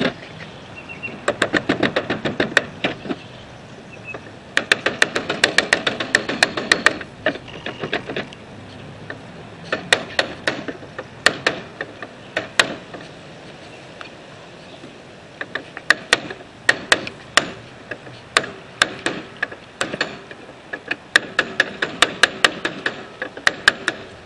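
Hammer driving the retaining pin through a riding mower's steering wheel hub and shaft: quick runs of sharp taps, several a second, in bursts of one to three seconds with short pauses between.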